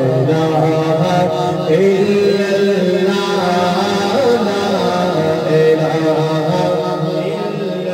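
A man singing an Urdu hamd (devotional praise of God) into a microphone, in long, held melodic notes that bend slowly in pitch.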